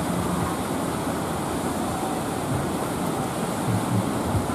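Steady wash of sea surf breaking on the shore, with occasional low rumbles underneath.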